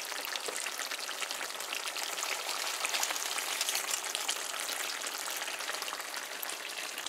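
Goat curry in a metal pot sizzling and simmering on the stove: a steady, dense crackle and hiss.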